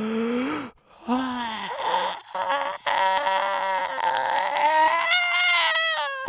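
A voice wailing and whimpering in long, wavering, drawn-out tones. It starts low and jumps much higher about two seconds in, holding there with a slight rise near the end.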